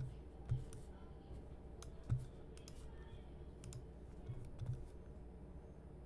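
Faint scattered clicks of a computer mouse being used to scroll a web page: about six short clicks with low taps, the loudest about two seconds in.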